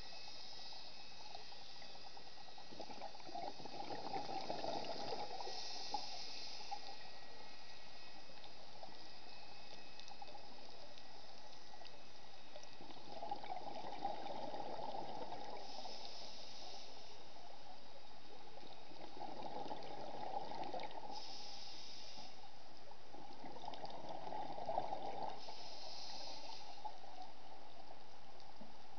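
Scuba diver breathing through a regulator underwater: four rounds of bubbling, each followed by a short hiss, several seconds apart, over a steady background hiss.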